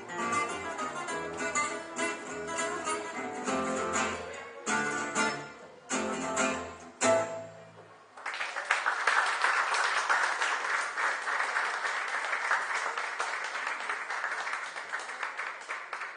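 Gypsy jazz band of acoustic guitars and double bass playing the closing bars of a swing tune, ending on a few sharp stop chords. About halfway through, the music stops and audience applause follows.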